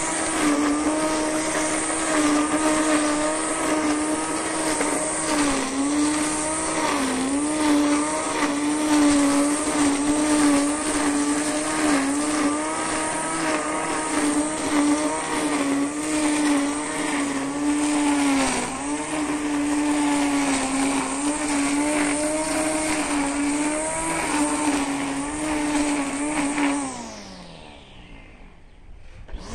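Electric string trimmer running at speed as its line cuts grass and weeds, the whine sagging briefly now and then under load. Near the end the motor is released and winds down with a falling whine, then starts up again.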